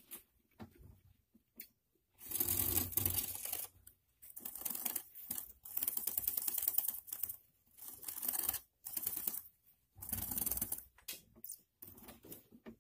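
Gerbils making rapid, dry crackling and scratching sounds close to the microphone, in several bursts of one to three seconds with short pauses between, starting about two seconds in.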